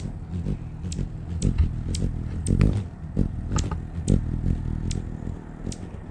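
Handling noise from a GoPro camera on a long pole: an uneven low rumble with about a dozen sharp, high ticks and clicks scattered through it.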